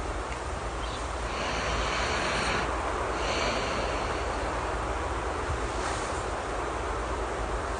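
Steady rain ambience with a sleeping person's soft snoring: two long snoring breaths in the first half and a fainter one later.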